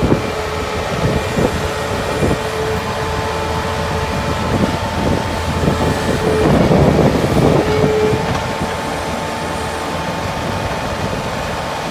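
Bobcat S185 skid steer's diesel engine running steadily, with a steady whine over it, growing louder and rougher for a second or two about seven seconds in.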